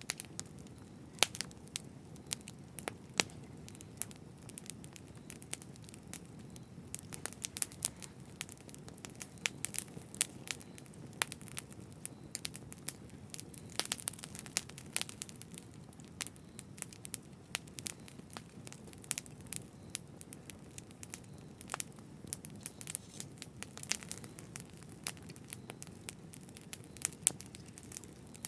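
Campfire burning: irregular sharp crackles and pops from the burning wood over a steady low rush of flame.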